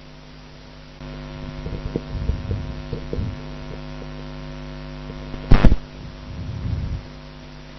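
Steady electrical mains hum with several harmonics, with a few soft low knocks between one and three seconds in and one loud, sharp thump about five and a half seconds in.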